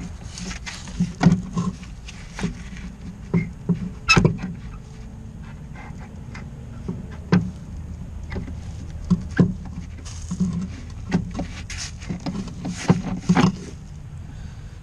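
Irregular clunks and knocks of a shock mount and strut parts being handled and fitted back onto a Mazda 3's suspension, with the loudest knock about four seconds in.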